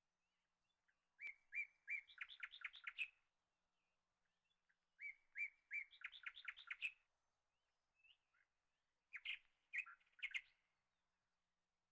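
A songbird singing three phrases a few seconds apart, each a few spaced notes that speed up into a quick run of notes.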